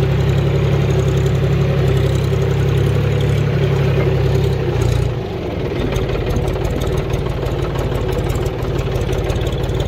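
John Deere diesel tractor engine running steadily. About five seconds in, its deep low hum drops away and the sound goes a little quieter, then it runs on evenly.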